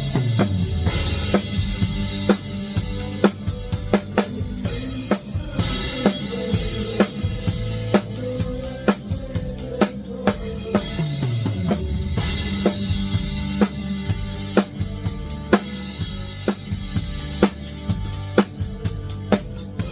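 Drum kit played with Ahead Crossroads XRS synthetic drumsticks in a live country band: a steady beat of bass drum, snare and cymbals over the band. A low note slides down near the start and again about halfway through.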